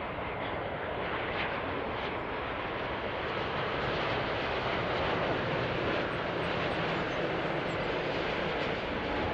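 Boeing 787 Dreamliner on final approach with its gear down: a steady rush of jet engine and air noise that slowly grows louder as the airliner comes closer.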